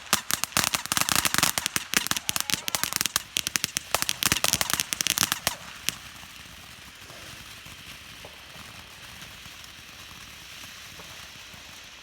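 Firework crackling: a dense, rapid string of sharp pops for about six seconds, which then stops, leaving a steady hiss.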